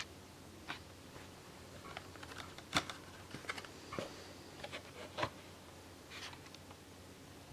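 Clear plastic blister packaging crackling and clicking as it is handled, in a scatter of short crinkles with the loudest click a little under three seconds in.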